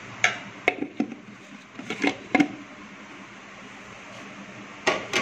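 Kitchen things being handled and set down on a counter while preparing to roll spring rolls: about nine short knocks and taps, bunched in the first second, around two seconds in, and near the end, over a steady low hiss.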